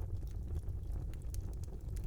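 Wood fire burning in a small fireplace: a steady low rumble of the flames with frequent small, sharp crackles and pops.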